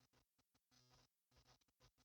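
Near silence, with only very faint short rustles.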